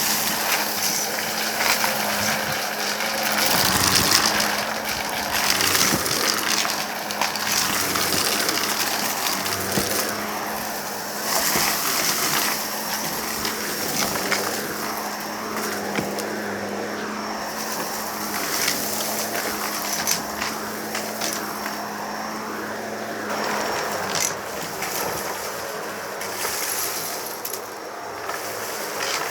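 Vacuum cleaner running with a steady motor hum while it sucks up a dry debris mix, with many small pieces clicking and rattling as they are pulled through the machine.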